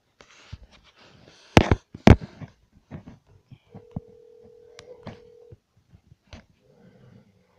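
Ringback tone of an outgoing phone call: one steady ring of about two seconds, starting about halfway through. Two sharp clicks come before it, about a second and a half in.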